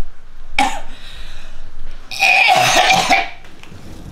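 A woman coughing hard: one short cough about half a second in, then a longer, strained cough about two seconds in.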